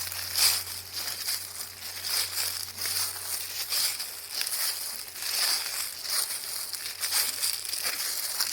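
Dry autumn leaves rustling and crackling, a dense run of irregular crisp crackles.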